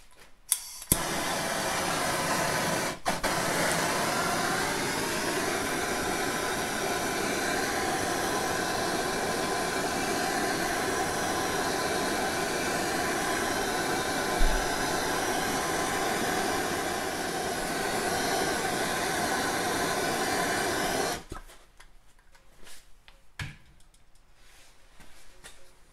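Handheld torch on a MAP-Pro propylene gas cylinder, burning with a steady hiss as it heats the crankcase to free the main shaft. It comes on with a click about a second in, drops out briefly around three seconds, and cuts off suddenly about 21 seconds in.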